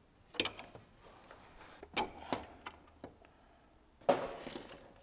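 Scattered light clicks and clinks of hand tools and metal engine parts being handled during timing-chain work, with a short rattling noise about four seconds in.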